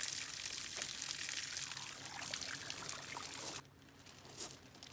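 Water running from a hose and splashing into the opened belly of a gutted rainbow trout, rinsing out the cavity after gutting. The flow stops suddenly about three and a half seconds in.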